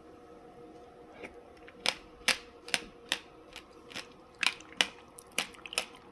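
Passion fruit seeds crunching as a mouthful of pulp is chewed: a run of sharp, crisp clicks, about two or three a second, starting about a second in.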